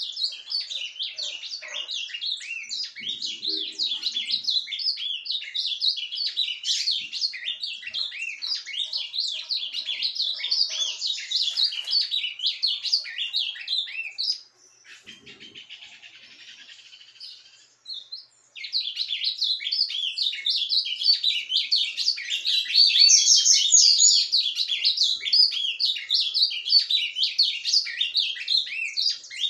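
Caged ultramarine grosbeak (azulão) singing a long, rapid, rambling twittering warble. It breaks off to something fainter and scratchier about halfway through, then resumes. The keeper wonders whether this is surdina, the bird's quiet subsong.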